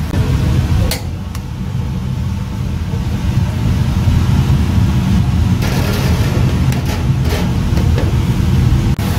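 Steady low machine rumble of a commercial kitchen, with a few light clicks and clatters.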